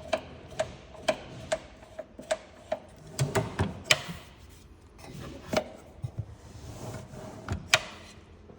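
Sharp clicks as a latch screw is tightened with a 3/32 Allen driver, about two a second at first, then a few louder irregular clicks with some handling noise.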